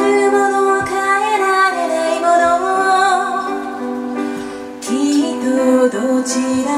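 A woman singing a slow song to her own electric keyboard accompaniment: sustained keyboard chords under her voice as it glides between notes.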